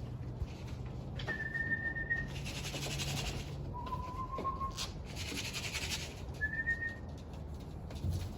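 A person whistling three short, steady notes: high, then lower and slightly rising, then high again. This is a pigeon fancier's whistle calling racing pigeons down to the loft. Two stretches of rapid fluttering noise come between the notes.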